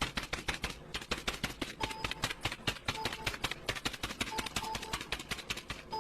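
Rapid, irregular clicking of keys being typed, about eight to ten clicks a second, with a few faint short tones among them.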